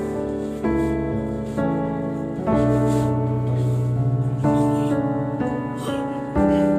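Background piano music: slow, soft chords, a new chord struck about once a second and left to fade.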